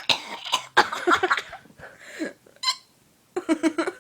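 A person's squeaky, high-pitched hiccups, a few short ones in a row, mixed with breathy laughter.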